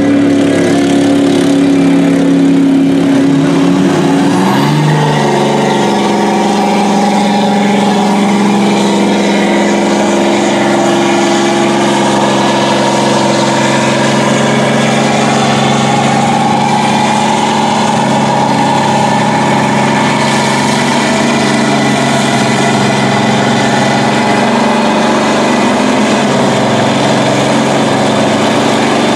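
Mud truck engines running hard at high revs while the trucks churn through a deep mud pit; the engine note climbs about four to five seconds in, then holds steady and high.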